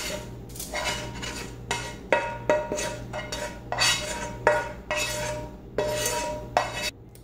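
Metal utensil scraping and knocking against a metal pan, about a dozen strokes at roughly two a second, each leaving a brief metallic ring, as browned mushrooms are spooned out onto fish in a skillet.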